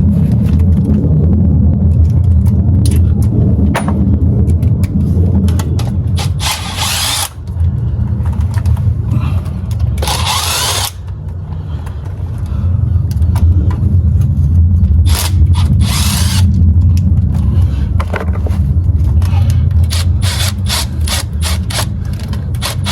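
Ratchet wrench on the transmission pan bolts, clicking in bursts with a quicker run of clicks near the end, over a steady low rumble.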